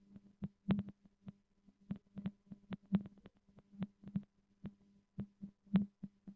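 A run of short, faint clicks at an uneven pace, about three a second, each carrying a brief low tone, over a faint steady hum.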